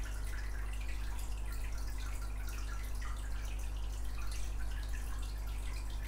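Steady low hum with faint, scattered small clicks and ticks over it.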